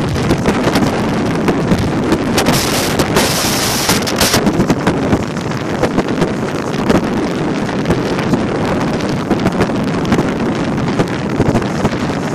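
Wind buffeting a phone microphone while skiing downhill, mixed with the hiss and scrape of skis on packed snow, with a stronger hiss about two to four seconds in.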